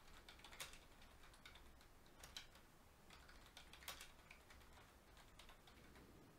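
Faint typing on a computer keyboard: scattered, irregular key clicks in short runs.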